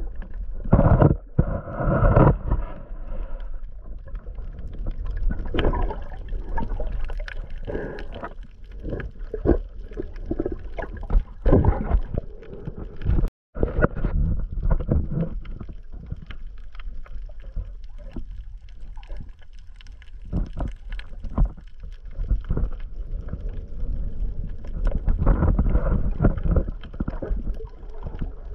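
Muffled water sloshing and gurgling around a GoPro camera held just underwater while snorkeling, in irregular surges. The sound cuts out for a moment a little before halfway.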